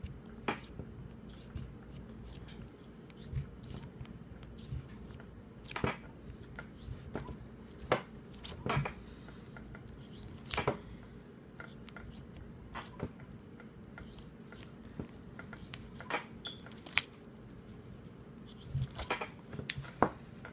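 Irregular clicks and light knocks of a metal cleaning rod with a cloth patch being worked through a revolver's cylinder chambers, over a faint low steady hum.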